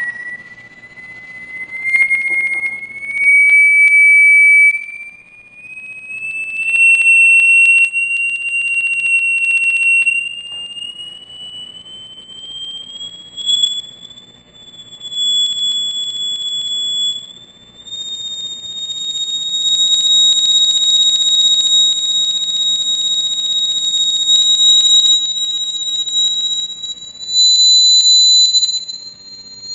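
A shrill pure test tone driving a square Chladni resonance plate, rising slowly in pitch in small steps. It swells much louder several times, around the second, seventh, twentieth and twenty-eighth seconds, as the plate hits resonances and forms new node patterns.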